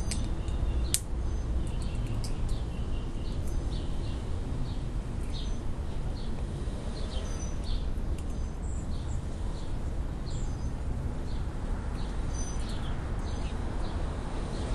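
A squirrel gnawing a walnut: its teeth crack and chip the shell in scattered small clicks, a few every second, over a steady low rumble.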